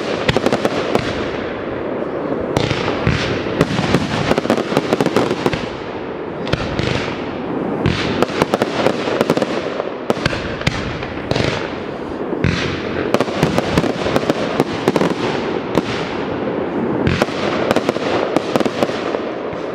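Fireworks display: aerial fireworks bursting in a continuous barrage, many sharp bangs following close on one another and overlapping without a pause.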